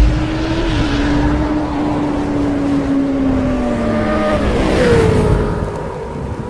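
A motor vehicle engine running with a steady note. Its pitch slides down about four seconds in, a higher note takes over around five seconds, and the sound then fades.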